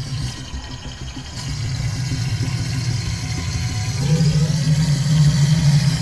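Crocodile hissing with a deep, rumbling growl. It builds from about a second and a half in and is loudest near the end.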